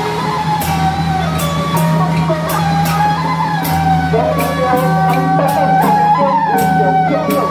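Traditional Taiwanese temple-procession music: an ornamented, gliding melody over a steady low drone, with drum and cymbal strokes about three times a second.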